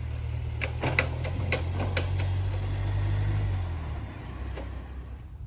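A low, steady engine hum that eases off about four seconds in, with several sharp clicks in the first two seconds.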